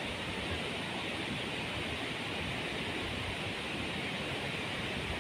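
Water rushing and churning down a rocky, stone-walled channel, a steady even rush of white noise.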